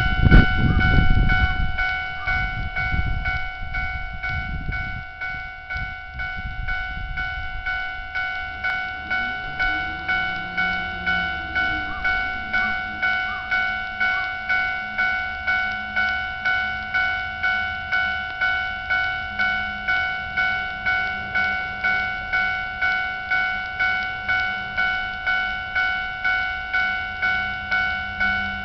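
Railway level-crossing warning bell ringing steadily at about two strikes a second. A train rumbles past in the first few seconds, fading out by about six seconds in.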